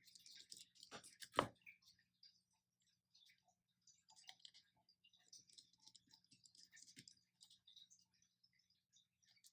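Faint clicks and light scraping of small repair tools on an iPhone 5's metal and plastic parts and screws, with one sharper tap about a second and a half in and a run of quick light clicks midway.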